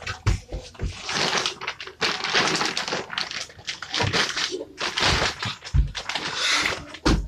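Thumps and knocks of a child climbing on a wooden bunk bed, with a few heavy thuds and stretches of rustling in between.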